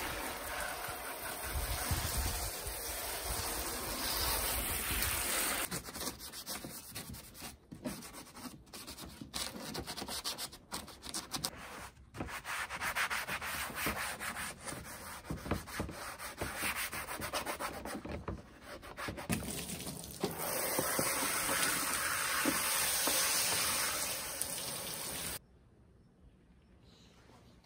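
Water spraying from a hose nozzle onto a plastic car door trim panel, then rapid rubbing strokes as the soapy panel is scrubbed by hand, then spraying again. The sound drops away suddenly near the end.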